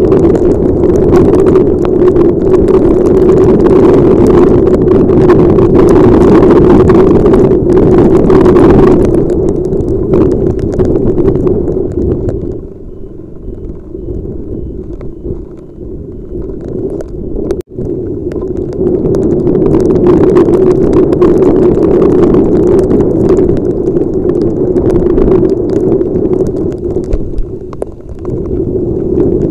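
Loud, steady rushing noise of riding in heavy rain as picked up by a helmet-mounted camera's microphone, wind and rain over the motorcycle. It eases off for several seconds around the middle, cutting out for an instant, then comes back up.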